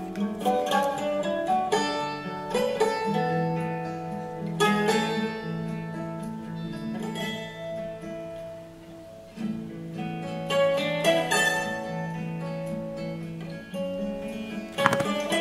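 Background music: a plucked guitar playing a melody over held notes.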